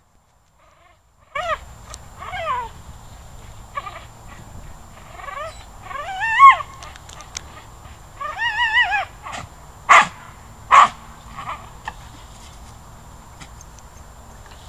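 Small dog yelping and whining excitedly in high cries that rise and waver, with two sharp barks about ten seconds in.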